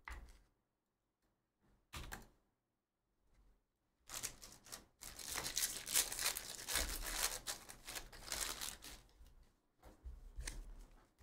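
Trading cards being handled: a few brief rustles, then about five seconds of dense crackly rustling and crinkling as a freshly opened pack of cards and its foil wrapper are handled and the cards shuffled through.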